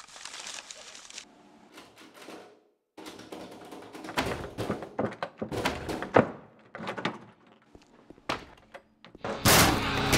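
A short rustle of paper, then a run of irregular heavy thuds and knocks on a door. A loud burst of music cuts in near the end.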